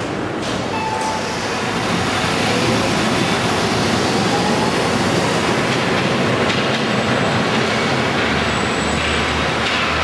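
Wuppertal Schwebebahn suspension railway car running along its overhead rail: a steady rail-vehicle noise of wheels and running gear, getting a little louder about two seconds in.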